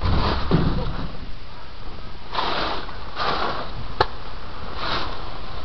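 Short rustling noises at the helmet microphone as the wearer moves, coming in bursts about once a second, with one sharp snap about four seconds in.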